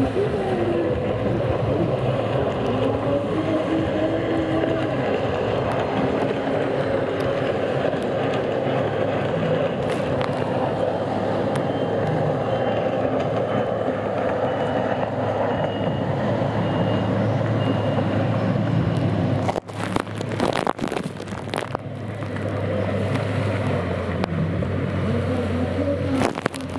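Several racing jet skis' engines running hard together, their pitch rising and falling as they accelerate and turn. About twenty seconds in the sound breaks up for a couple of seconds with sharp crackles.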